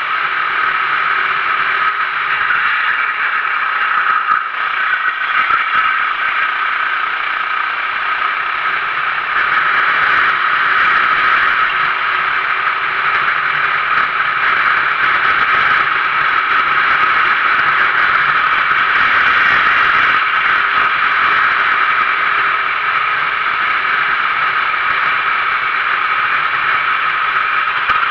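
Sodi RT8 racing kart's 390cc single-cylinder four-stroke engine running hard at racing speed, with wind and chassis noise, heard from a camera mounted on the kart. It grows a little louder about a third of the way in.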